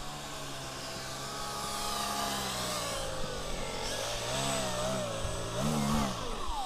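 RC Pitts model biplane's motor and propeller buzzing as it taxis toward the camera. The pitch swells and drops twice as the throttle is blipped, then falls away as the plane passes close by.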